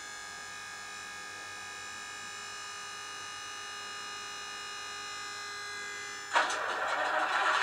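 Piko H0 Kaluga model locomotive's sound running as a steady hum with many even overtones. About six seconds in, a louder, rougher noise starts suddenly and builds.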